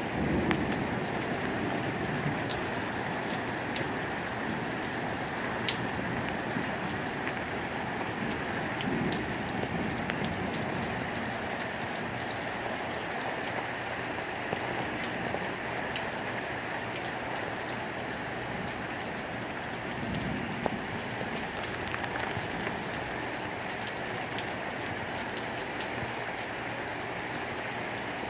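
Thunderstorm rain falling steadily, with scattered faint ticks of drops striking.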